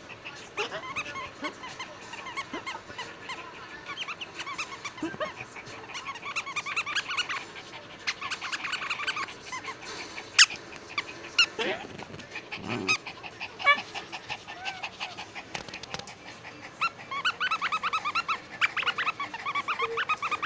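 Small dog chewing a squeaky toy, setting off quick runs of squeaks in several bursts, with a few sharp clicks about halfway through.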